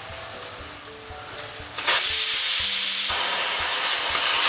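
Sliced onions sizzling as they drop into hot oil in a pan: a loud hiss starts suddenly about two seconds in, is strongest for about a second, then settles to a steadier sizzle.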